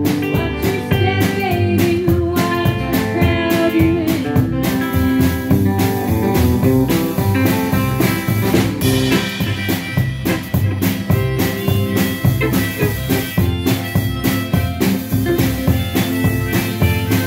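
Live band playing a blues-style instrumental passage: strummed acoustic guitar, plucked upright bass and drums, with a harmonica playing the lead line.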